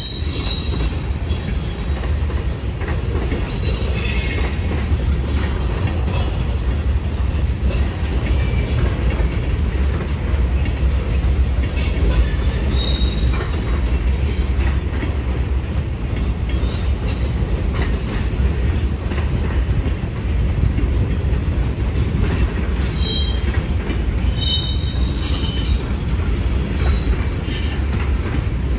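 Freight train cars rolling past: a steady low rumble of steel wheels on rail with rail-joint clicks, and brief high wheel squeals now and then.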